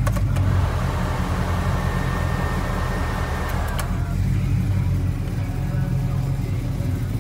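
GM crate 350 V8 idling steadily, heard from inside the cab. About a third of a second in, a switch clicks and the under-dash air-conditioning blower comes on with a rushing whir and a faint steady whine. It is clicked off at about four seconds.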